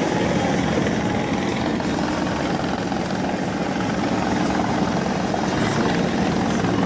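Loud, steady engine noise with no clear breaks.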